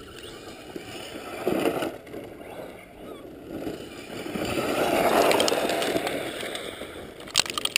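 Radio-controlled truck's electric motor and tyres churning through loose sand, swelling and fading as it climbs a sand bank, loudest about five seconds in, with a few sharp clicks near the end.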